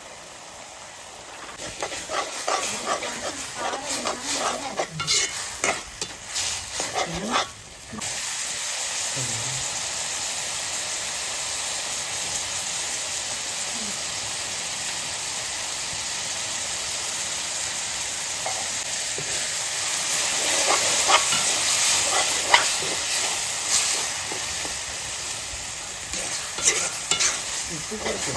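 Chicken devil frying in an oiled pan, sizzling steadily while a spoon scrapes and clinks against the pan in stirring strokes. The sizzle grows louder and steadier about a quarter of the way in, and the stirring strokes are heaviest at the start and near the end.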